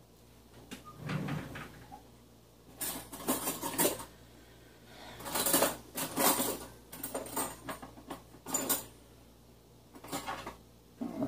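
Intermittent handling noise of kitchen utensils and dishes on a counter: a series of brief clinks and rustles with quiet gaps between.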